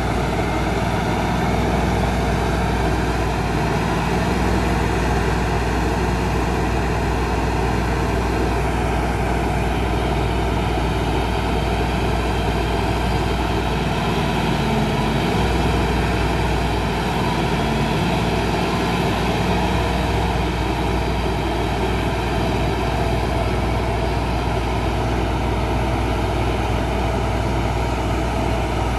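LS tractor's diesel engine running steadily as its loader grapple holds a log up, the engine note wavering briefly about halfway through.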